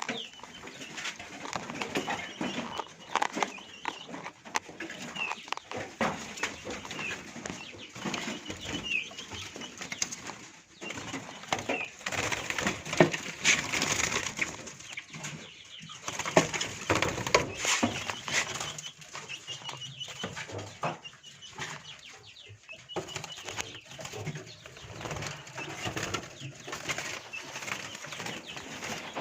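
Caged birds fluttering and scrabbling against their cages, with many short chirps and irregular knocks and rustling.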